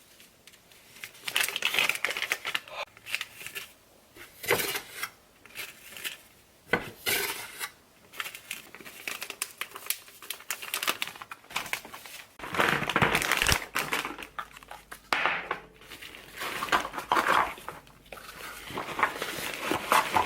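Irregular crinkling and rustling of wrapping being handled, with a few light clicks and knocks.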